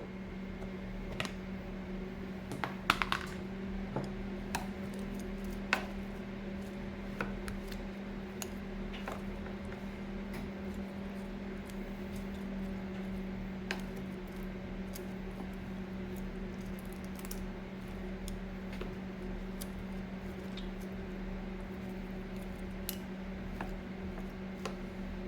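Scattered light clicks and knocks of kitchen utensils and dishes being handled during food preparation, busiest in the first few seconds, over a steady low electrical hum.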